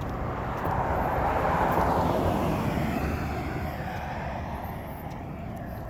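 Traffic noise of a vehicle passing by, swelling to its loudest about two seconds in and then slowly fading, over a steady low rumble.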